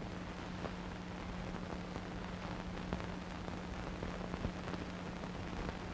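Steady hiss with a constant low hum and scattered faint crackling clicks: the noise floor of a silent archival film transfer, with no recorded sound of its own.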